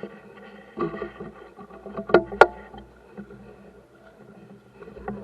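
A boat's motor running with a steady hum, broken by a few sharp knocks, the loudest a pair in quick succession about two seconds in.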